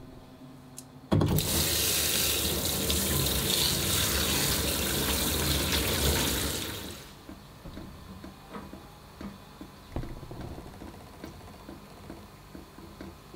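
Kitchen tap running hard onto a block of yakisoba noodles in a stainless mesh strainer, water splashing into a stainless steel sink. It starts suddenly about a second in and dies away after about six seconds, leaving only faint small wet sounds.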